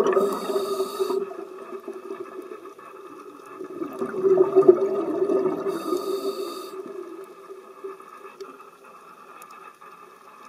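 Scuba diver breathing through a regulator underwater: exhaled bubbles gurgle in two swells, and each breath has a short hiss from the regulator, twice about five seconds apart.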